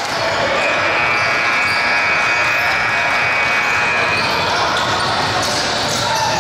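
Basketball game noise in a gym: a ball being dribbled on the court amid voices of players and spectators, with a steady high tone running for a few seconds from about half a second in.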